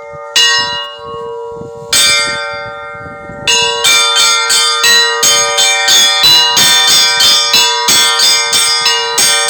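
Cathedral church bells ringing: a large bell's low tone hums on under two single strokes, then about three and a half seconds in a fast, even peal of several bells starts, about three strokes a second.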